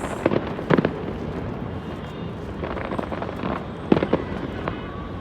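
Fireworks bursting in an irregular series of sharp bangs and cracks, with two strong reports close together near the start and another pair near four seconds in.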